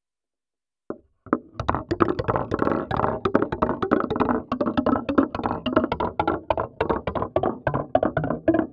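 Marbles clacking and rolling through a marble toy, picked up by a contact microphone: after a brief silence, a dense, rapid run of hard clicks and knocks about a second in, each with a short hollow ring.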